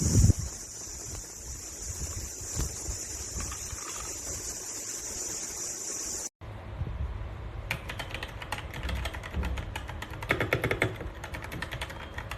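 Typing on a K68BT mechanical keyboard with linear Red switches: a quick, busy run of keystrokes in the second half, after a steady hiss that cuts off suddenly about halfway through.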